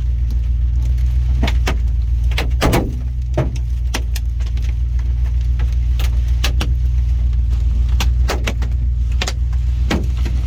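Large hailstones hitting a vehicle's body and glass, heard from inside the cabin: irregular sharp bangs and cracks, a couple a second, over a steady low rumble.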